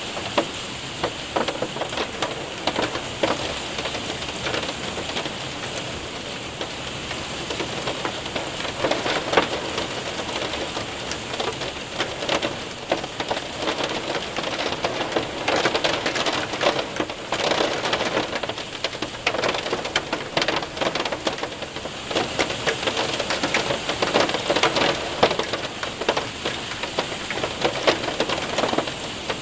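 Rain and hail pelting a window and roof: a dense steady patter with many sharp individual ticks of hailstones, swelling and easing in waves.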